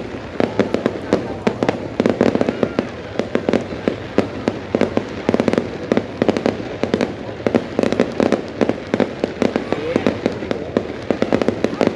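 Fireworks going off in a rapid, continuous barrage of sharp bangs and crackles, several per second.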